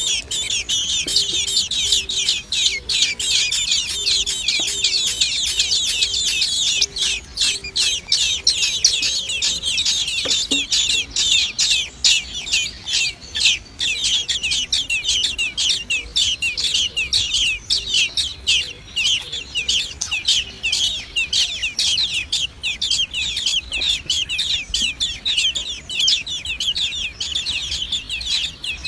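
Nestling birds begging: a dense, continuous chorus of rapid high-pitched cheeps, many calls a second.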